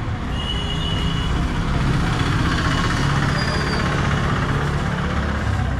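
Yamaha R15 V2 motorcycle's single-cylinder engine running steadily at idle.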